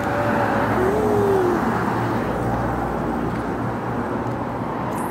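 Road traffic noise: a steady rush of cars going past, swelling slightly as one passes close about a second or two in.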